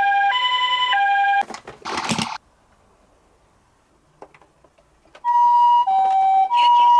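Toy ambulance minicar's electronic two-tone siren sounding a high-low pattern that cuts off about a second and a half in. A short burst of noise follows, then about three seconds of near silence, and the siren starts again near the end.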